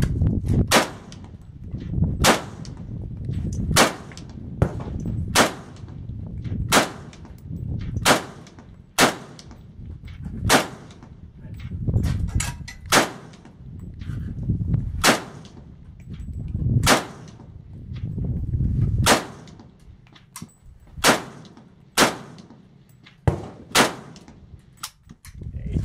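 Romanian WASR-10 rifle, an AK-47 variant in 7.62×39 mm, fired semi-automatically: about two dozen single shots, mostly one to two seconds apart, coming quicker near the end.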